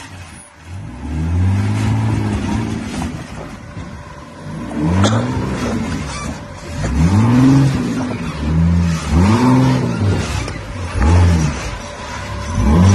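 Rock buggy's engine revved in repeated short blips while crawling over boulders, each one rising and falling in pitch, about six or seven times with a little idle between.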